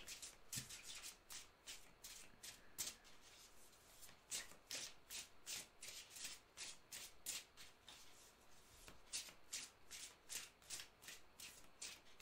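A deck of oracle cards being shuffled by hand: a faint, irregular run of short card-on-card strokes, about two to three a second.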